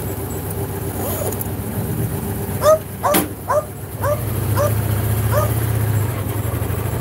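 Belgian Malinois giving a run of short, high yelps about half a second apart, beginning a little over two seconds in, over the motorcycle's engine running low and steady. The engine grows louder about four seconds in. There is a single sharp click between the first yelps.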